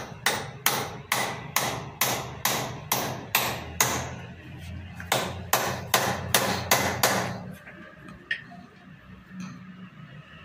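A hammer striking repeatedly at about two to three blows a second, pausing briefly about four seconds in, then a few more blows before stopping about seven seconds in.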